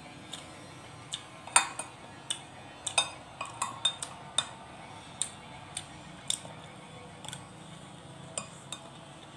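Metal spoon clinking and scraping against a dish while eating: a string of about twenty sharp, irregular clinks, the loudest about one and a half seconds in.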